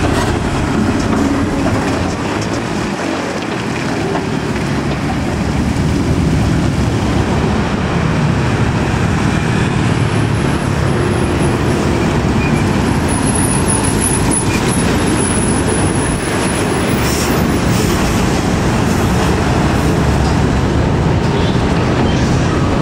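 Heavy diesel trucks passing one after another in steady traffic: engines running under load with tyre and road noise. A Mitsubishi Fuso Super Great cab-over truck comes past near the end.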